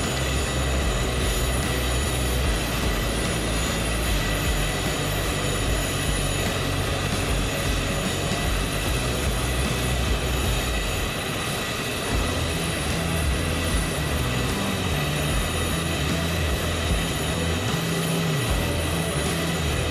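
Airbus A400M's four turboprop engines running on the ground: a steady high whine over a low rumble.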